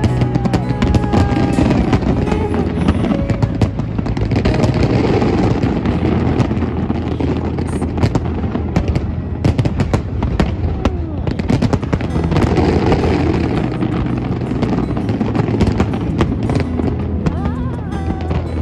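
Fireworks display: aerial shells banging and crackling in quick succession, with music playing along.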